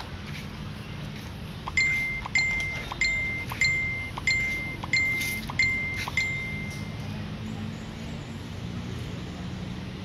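A high ringing tone repeated eight times at an even pace, about one every two-thirds of a second. Each starts sharply and fades, and the series stops about six seconds in, over a low steady background hum.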